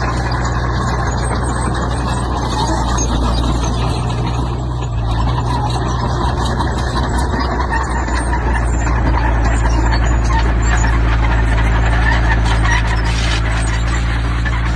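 Heavy diesel construction machinery running: a steady low engine drone under dense mechanical rattle and scrape, getting a little louder about a third of the way in.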